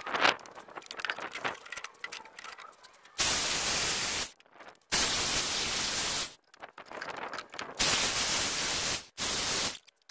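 Electric chainsaw in a homemade chainsaw-mill jig, run in four short bursts that start and stop abruptly, heard as a harsh, even hiss with no clear motor pitch. Scattered knocks and clatter of handling the jig and wood come before the first burst.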